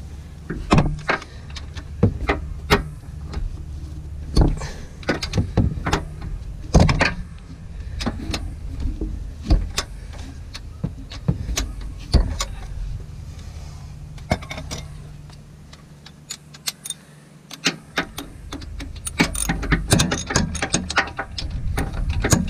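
Breaker bar and socket clicking and knocking against metal while car transmission mount bolts are worked loose, scattered sharp clicks with a quieter stretch about two-thirds of the way through and a run of quick clicks near the end, over a low steady hum.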